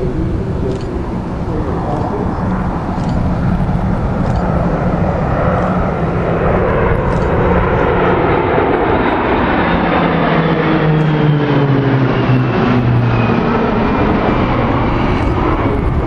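Formation flypast of a Douglas DC-3 with several smaller aircraft: a loud, steady engine drone overhead. Its pitch drops as the formation passes, about ten to thirteen seconds in.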